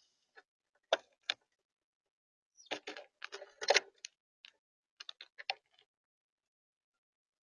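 Irregular sharp taps and clicks on the bird feeder, single and in quick bunches: birds pecking at seed and hopping on the feeder.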